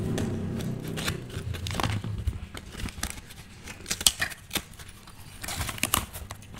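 Scissors snipping through a cardboard parcel and its packing tape, then the cardboard being torn and the flaps pulled open by hand, with sharp clicks and rustles throughout. A low hum underlies the first couple of seconds.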